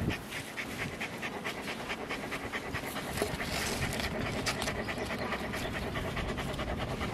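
A dog panting quickly and evenly close by, the breaths coming several a second.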